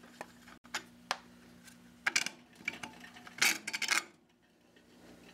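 Chrome air cleaner cover on a Briggs & Stratton flathead mower engine being worked loose and lifted off by hand: a few light metal clicks, then louder clinks and rattles of the sheet-metal cover between about two and four seconds in.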